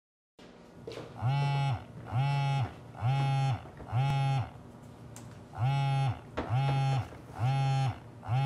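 Mobile phone buzzing with an incoming call: short buzzes about one a second, four of them, a brief pause, then four more. Faint clicks of handling at the counter come between the buzzes.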